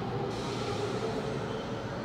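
Blue Hanshin commuter electric train running as it pulls away from the station, with a steady hum from its motors and wheels and a hiss that comes in about a third of a second in.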